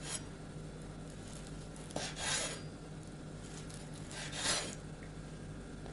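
Kitchen knife slicing through a cooked pig's ear against a wooden cutting board: two cutting strokes, about two seconds in and again about four and a half seconds in.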